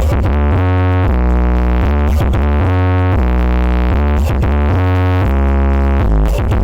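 Loud electronic dance music played through a large sound system: sustained synthesizer chords that change about once a second over heavy bass, with occasional sharp drum hits.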